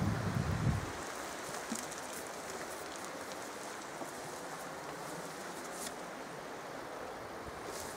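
Steady rush of a fast-flowing moorland beck, with a brief low rumble in the first second.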